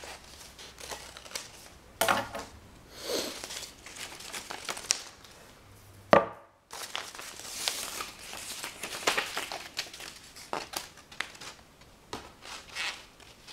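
Stiff paper strips rustling and crinkling as they are handled and unfolded, with scattered light taps and clicks. A single sharp knock about six seconds in is the loudest sound.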